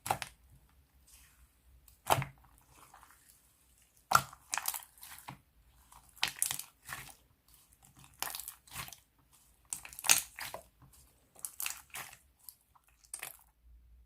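Slime being pressed and squeezed by hand, giving short bursts of crackling and popping in clusters about every one to two seconds.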